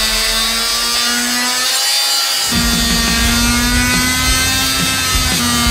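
Handheld rotary tool running at high speed, cutting the truck's dash to enlarge the radio opening: a steady high whine that drops out briefly about two seconds in, then runs again with rougher grinding noise as it cuts.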